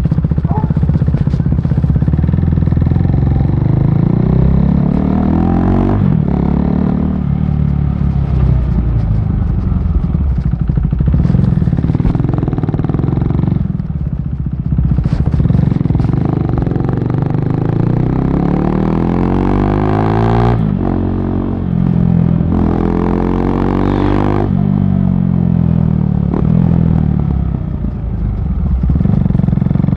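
KTM RC 390's single-cylinder engine through a barrel exhaust with the dB killer removed, pulling hard while riding. The pitch climbs again and again, then drops sharply at each gear change.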